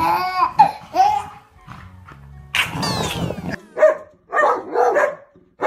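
A dog barking in short bursts, with a baby's high squeals near the start.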